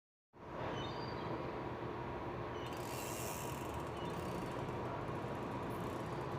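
A steady rumbling, mechanical-sounding noise with a faint steady hum in it, cutting in suddenly out of silence just under half a second in.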